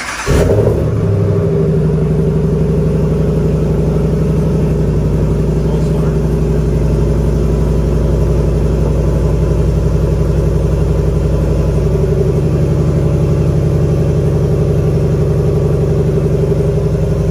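The 5.7-litre Hemi V8 of a 2021 Ram 1500 cold-starting with its muffler deleted. It fires about a third of a second in with a brief flare, then settles into a steady idle.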